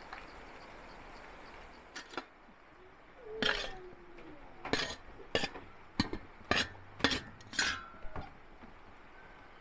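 A metal spoon clinking and scraping against an enamel tray and dishes as rice is served out: a string of about nine sharp clinks starting about two seconds in.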